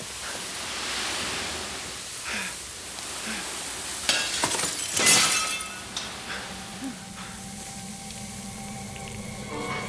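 Loose sand pouring and hissing onto the floor from a shattered glass display case, with scattered clinks of broken glass settling; the sharpest clink comes about five seconds in. A low hum and faint steady tones come in over the last few seconds.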